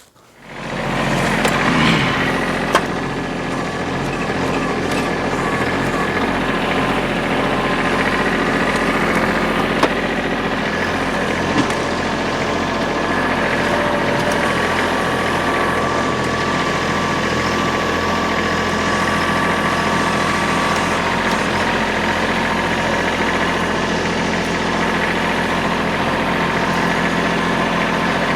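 Tractor engine running steadily, with a few brief sharp clicks along the way.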